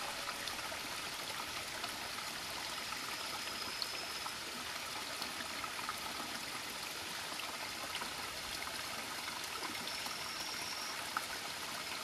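Rocky mountain stream flowing: a steady, even rush of water over stones.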